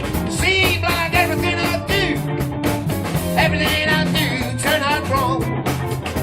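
Electric blues band playing live: steady bass and drum beat under a lead line that bends and wavers in pitch across two phrases.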